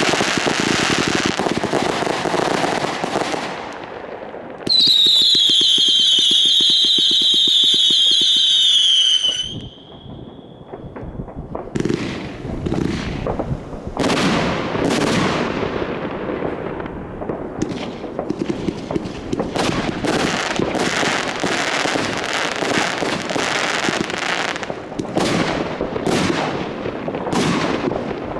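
Consumer fireworks going off: dense crackling, then one loud whistle of about four and a half seconds that slowly falls in pitch and cuts off suddenly, followed by a fast, uneven run of sharp bangs and crackles from firing batteries.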